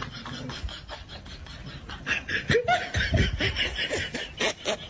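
A person laughing in quick repeated bursts, louder from about two seconds in.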